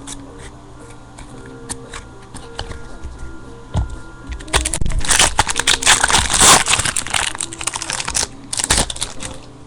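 A trading-card pack wrapper crinkling and tearing open in a loud crackly burst lasting about four seconds, starting about halfway through, with one more short crinkle near the end. Background music plays throughout.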